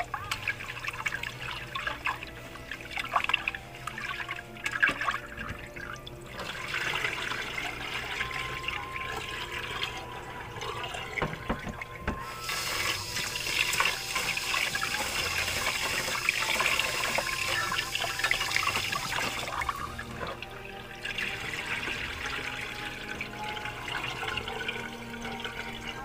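Tap water running into a metal pot of rice while a hand swirls and rubs the grains to wash them, with sloshing and splashing. The stream runs stronger and hissier for several seconds past the middle.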